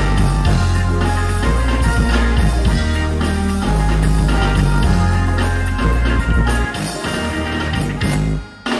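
Loud music played by a DJ through a stage sound system, with a heavy bass line. The bass drops out about seven seconds in, and the music almost cuts out just before the end.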